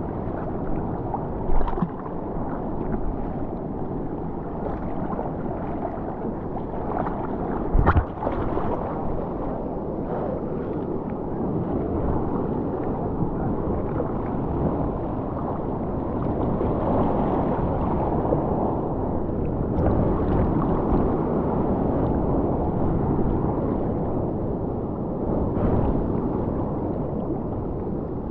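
Sea water sloshing and gurgling around a camera held at the ocean surface from a bodyboard. Two brief thumps, about a second and a half in and again about eight seconds in, stand out over the water noise.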